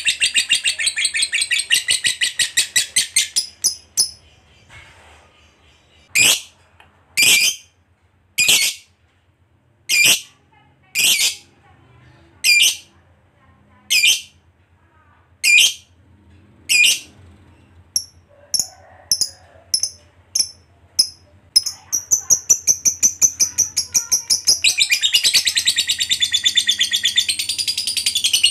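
A lovebird chattering in a long, rapid, high trill (the 'ngekek'). After a few seconds it breaks off into single sharp calls about one a second. These then quicken into faster chirps and run back into the long chatter near the end.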